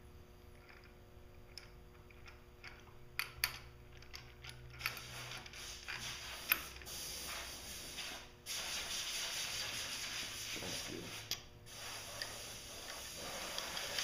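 Hand ratchet wrench clicking as bolts are run in on the engine's thermostat-housing bracket: a few separate clicks at first, then long runs of fast ratcheting with short pauses.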